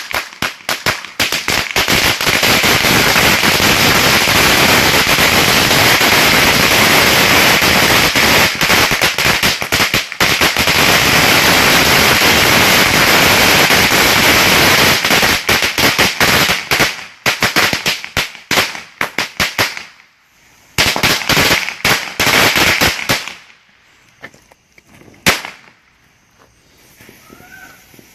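Bricks of firecrackers going off in a dense, unbroken string of rapid bangs for about seventeen seconds. The bangs then thin to scattered bursts and a few last single pops near the end.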